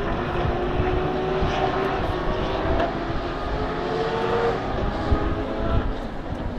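Porsche 911 GT3 race car's flat-six engine running hard through a corner, its note rising and falling and climbing again about four seconds in as it accelerates.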